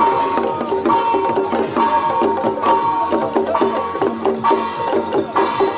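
Traditional temple percussion music: drums and clacking percussion in a busy, steady rhythm, with a high note struck again and again about once a second.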